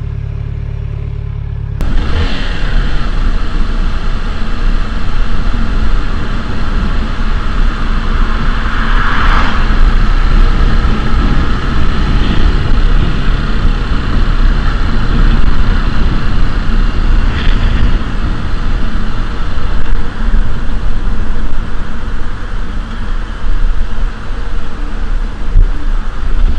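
Motorcycle engine idling with a steady low hum, then, after an abrupt change about two seconds in, a motorcycle riding along the road with loud wind rush on the helmet camera microphone over the engine.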